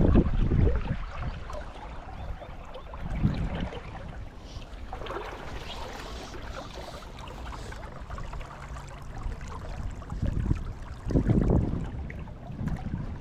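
River water running steadily, with gusts of wind buffeting the microphone several times, strongest near the start and again late on.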